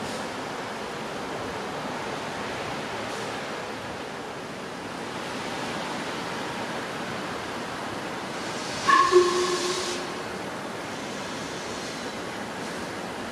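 Steam locomotive 46100 Royal Scot standing with steam hissing steadily from around it. About nine seconds in comes a short, loud toot on its whistle together with a burst of hiss, which dies away within about a second.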